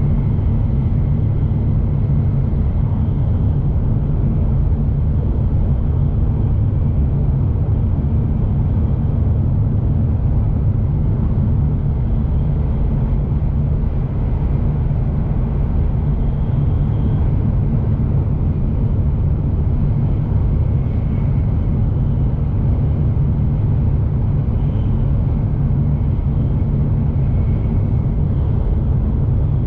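Shinkansen bullet train running at speed, heard from inside the passenger car: a steady, loud, low rumble with no breaks.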